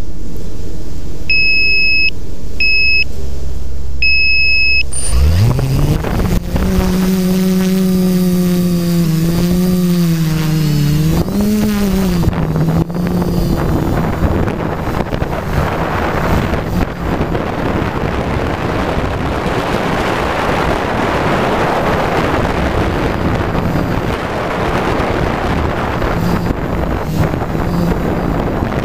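Three short electronic beeps over a low rumble, then about five seconds in the F450 quadcopter's four D2830 brushless motors spin up with a rising whine and run at a steady hum that wavers with the throttle as it lifts off. After that the motor and propeller sound is buried under a steady rush of wind on the microphone as the quad flies.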